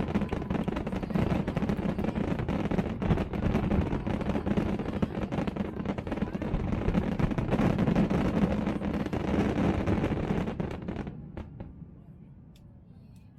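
Fireworks going off in rapid succession, a dense run of cracks and bangs over a continuous rumble. The crackling stops after about eleven seconds and the rumble dies away.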